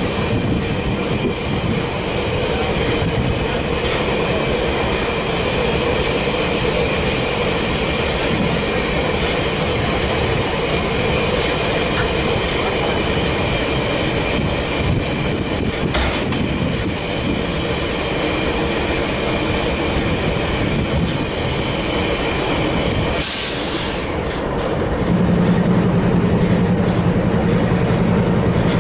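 A GE wide-cab diesel freight locomotive runs while standing, a steady engine drone with a high whine over it. In the last few seconds there is a short sharp hiss of air, then the engine grows louder with a deeper hum.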